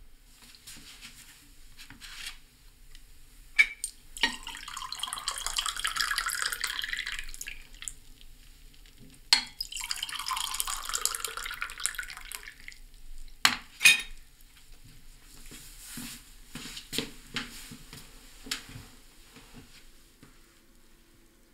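Tea poured from a ceramic teapot into cups: two pours of a few seconds each, with sharp clinks of china before and between them and lighter clinks and taps of crockery afterwards.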